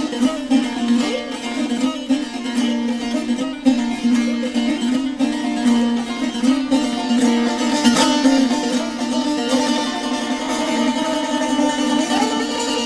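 Background instrumental music led by a plucked string instrument, playing steadily.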